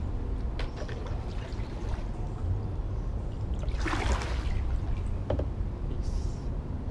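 Kayak paddle dipping into floodwater, with water splashing and trickling off the blade. There is one louder swish of water about four seconds in, over a low steady rumble.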